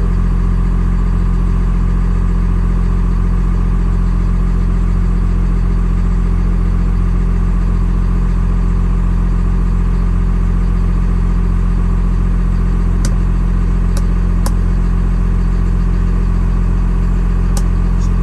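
Box truck engine idling steadily while it warms up, heard from inside the cab. A few sharp clicks come in the second half.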